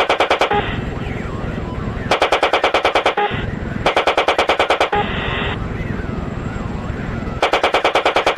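Attack helicopter's automatic cannon firing in four short bursts of about ten rounds a second, each burst lasting around a second, with a steady rushing noise in the gaps between them.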